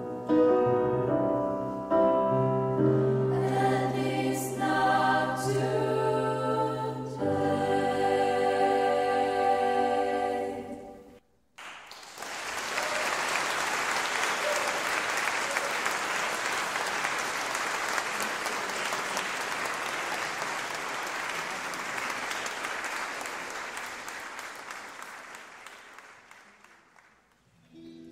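A female vocal ensemble with piano holding the closing chords of a song, which end about eleven seconds in. After a brief pause an audience applauds, and the clapping slowly dies away near the end.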